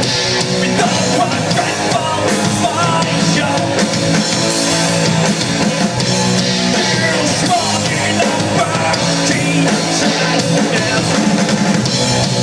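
Rock band playing live: a drum kit, guitars and singing, loud and continuous.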